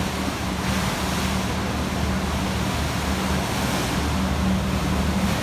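River cruise boat's engine droning steadily under rushing wind and water noise, which swells briefly about a second in and again near four seconds.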